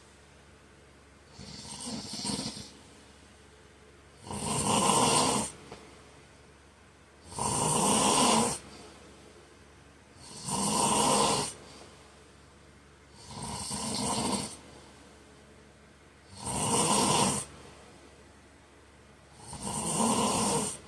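A man snoring in his sleep: seven loud snores in a steady rhythm, about one every three seconds, each lasting a second or so.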